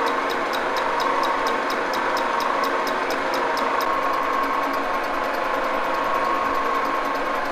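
Metal lathe, run from a frequency converter, turning its three-jaw chuck while the reverse jaws are bored: a steady running whine with regular ticks about three a second, which turn faster and fainter about four seconds in.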